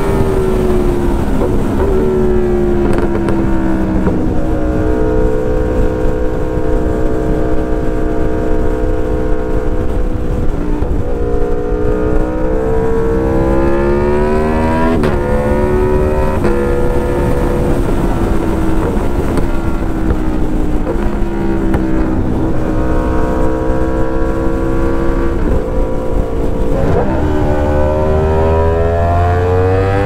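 Aprilia Tuono V4 Factory's 1100 cc V4 engine through an SC Project S1 exhaust with no catalytic converter, heard under hard riding from inside the rider's helmet. The engine note repeatedly climbs in pitch under acceleration and drops back, with a dense low rumble underneath.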